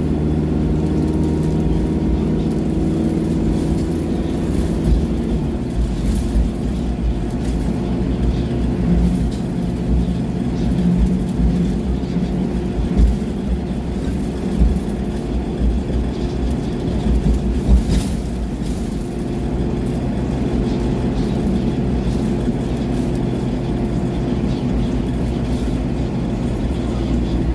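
Alexander Dennis Enviro200 Dart single-deck bus's diesel engine and drivetrain running while under way, heard from inside the passenger saloon, with a steady engine note that changes about four seconds in. Road rumble and interior rattles run throughout, with several sharp knocks or clicks, the clearest about eighteen seconds in.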